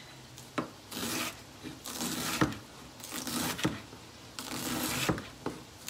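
A large kitchen knife slicing through a head of purple cabbage, with a crisp rasping crunch about once a second and sharp taps as the blade meets the cutting board.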